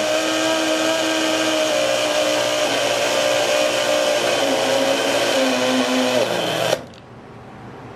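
Hamilton Beach blender's universal motor running flat out with no load on 250 V, a loud steady whine whose pitch wavers and sags a little, the commutator failing. About 7 s in it cuts off suddenly as the motor burns out and lets its smoke out.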